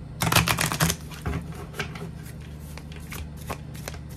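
Tarot cards being shuffled: a quick, dense run of card clicks in the first second, then scattered single card snaps and flicks.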